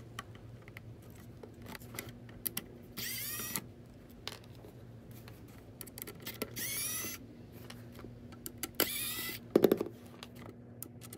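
Pen-style electric precision screwdriver whirring in three short bursts of about half a second each, backing out the Phillips screws from the gateway's base. A few sharp clicks come just before the end.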